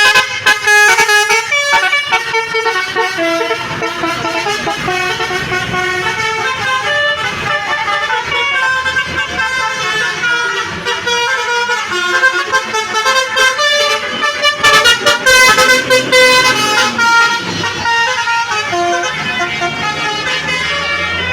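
Basuri-type 'telolet' multi-tone bus horn playing a melody: a continuous tune of bright horn notes stepping quickly from pitch to pitch, loudest about three quarters of the way through.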